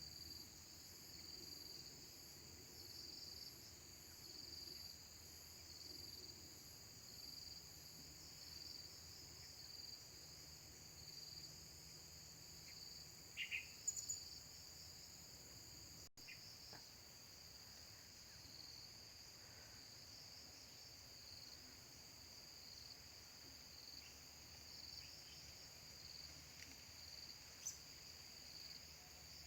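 Faint chorus of insects trilling steadily, with a high buzzing note that pulses about once a second. A couple of brief, high chirps come about halfway through.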